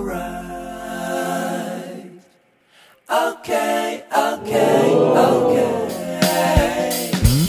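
Background music of singing voices; it drops out briefly about two and a half seconds in, then resumes.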